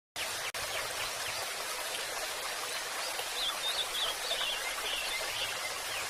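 Steady hiss of running water, with small birds chirping over it and a quick flurry of higher chirps about halfway through.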